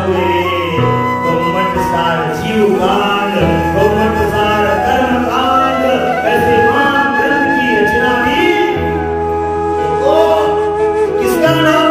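Devotional song: a voice singing a wavering melody over instrumental accompaniment with long held low notes that change every few seconds.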